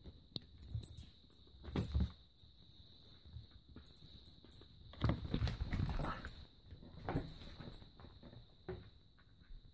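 A live mouse squeaking in many short, very high-pitched bursts as a cat hunts it, pawing and scuffling at it on the floor, with a few dull thuds.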